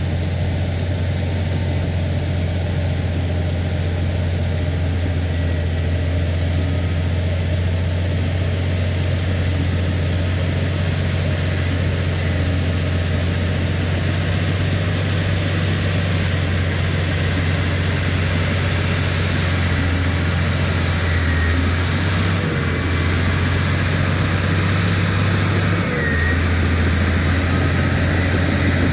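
Heavy earthmoving machine's engine running steadily while pushing topsoil, with its note shifting briefly twice in the last third.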